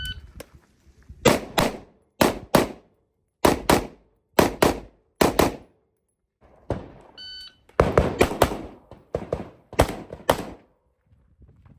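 A shot timer's start beep, then a string of rifle shots, mostly fired in quick pairs (double taps). There is a short pause about six seconds in, and another short electronic beep about seven seconds in before the shooting resumes.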